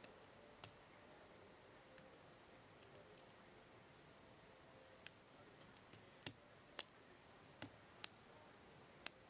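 Lock pick and pin tumblers clicking faintly inside a padlock cylinder as the pins are picked: about eight sharp, scattered clicks, most of them in the second half, over a quiet background.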